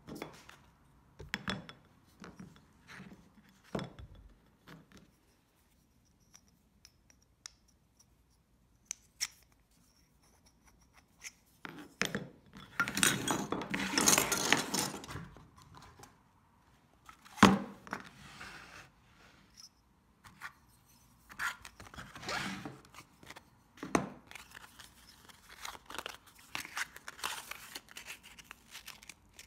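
Tools and the wooden handle handled on a cutting mat, with scattered knocks and clicks, and a longer scratchy rasp around the middle. Near the end, sandpaper is rubbed by hand over a shaped bloodwood handle, giving a steady rasping.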